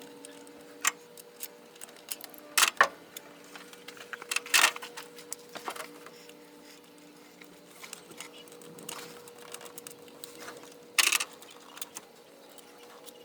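Scattered metallic clicks and clanks of hand tools and parts as an old carburetor is unbolted from a small-block Chevy V8, the loudest a few seconds apart, over a faint steady hum.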